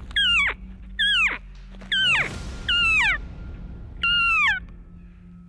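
Bull elk calling at close range: five short, high squeals about a second apart, each sliding down in pitch from a whistle.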